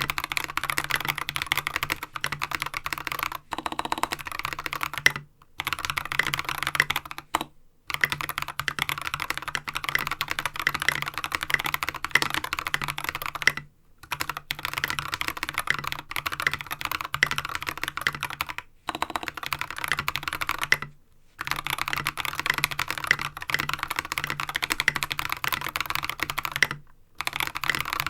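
Fast, continuous typing on a mechanical keyboard with Holy Panda tactile switches, lubed with Krytox 205g0, and tall SA-profile ABS keycaps, broken by a handful of short pauses.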